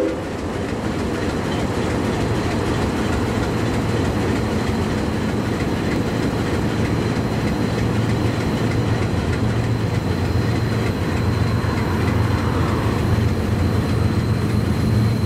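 Diesel locomotive running with a steady low rumble, a faint high whine joining a few seconds in.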